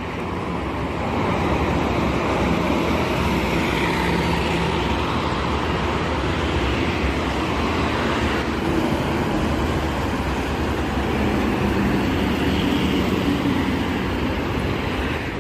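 Fast traffic on a multi-lane toll road: a continuous wash of tyre and engine noise from vehicles passing at speed, with a faint low engine hum, getting a little louder about a second in.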